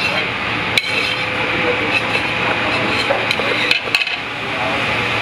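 Metal tongs and a steel ladle clicking and scraping against a stainless steel pan as pasta and sauce are served out: a sharp click about a second in, then a few more near the end. A loud, steady rushing noise runs underneath.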